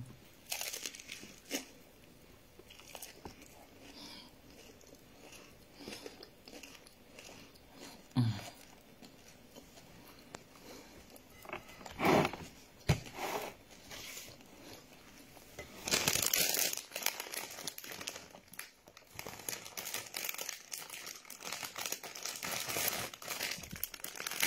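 Quiet chewing and small mouth and hand clicks while eating bread and fritters, then, about two-thirds of the way through, a plastic bread bag crinkling as it is handled.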